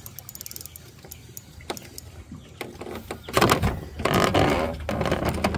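Fishing reel clicking as a hooked bass is reeled in. About three seconds in, louder scuffling and knocking take over as the fish is landed.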